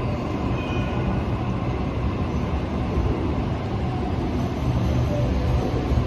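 Electric suburban passenger train running at the platform: a steady, dense rumble of wheels and motors, with a few faint higher tones over it.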